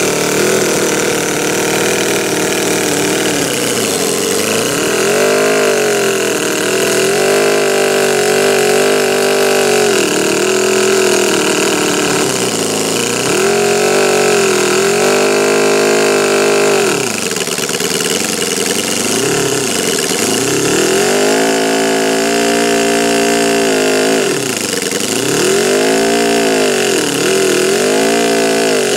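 Quarter-scale model Offenhauser inline four-cylinder engine running and being revved over and over, its pitch rising and falling every second or two. About two-thirds of the way through the revs sag low before it picks up and revs again.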